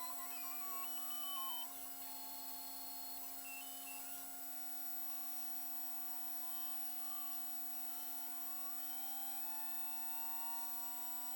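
Custom-built 5-axis CNC machine running as it machines a two-stroke cylinder sleeve: the axis motors whine in tones that jump from pitch to pitch as the axes move, with a slow rising whine near the end, over a steady hum.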